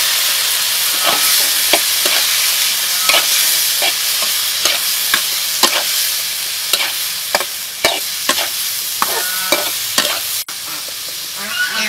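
Chicken gizzards sizzling in oil in a hot wok while being stir-fried, with a metal spatula scraping and knocking against the pan about every half second.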